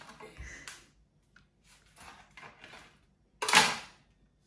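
Kitchen handling noises: a few light knocks and brief rustles, then one louder sharp noise about three and a half seconds in that starts suddenly and fades within half a second.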